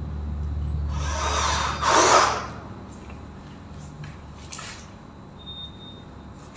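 Handheld power drill running, with one loud burst of about a second and a half near the start, then a short brief burst about two seconds later.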